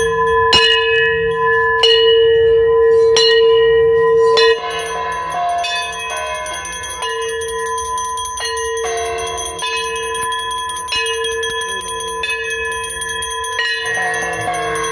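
Metal puja bells and gongs struck again and again in a ringing clang, with a fresh strike about every second and a bit. The sound gets quieter about four and a half seconds in and keeps on ringing.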